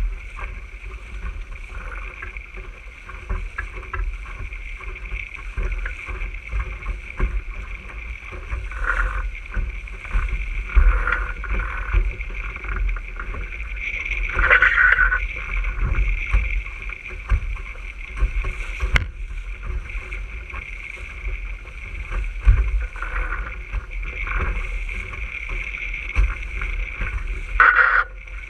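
RS600 sailing dinghy under way: water rushing and splashing along the hull, with wind rumbling on the microphone. One sharp click about two-thirds of the way through.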